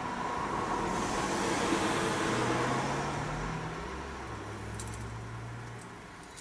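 A road vehicle passing by: a low engine hum and road noise swell for the first couple of seconds and then fade away. Two faint light clicks come near the end.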